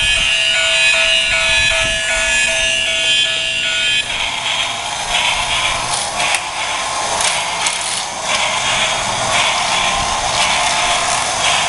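Battery-powered toy steam train running on plastic track. For about the first four seconds its electronic sound effect plays a repeating pattern of tones. After that, the whirring of its small electric motor and the rattle of its wheels on the track carry on, with a few sharp clicks.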